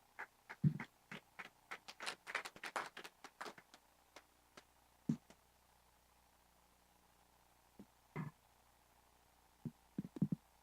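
Handling and movement noise near the microphone: a quick run of light knocks and clicks over the first four seconds, then a few scattered knocks later.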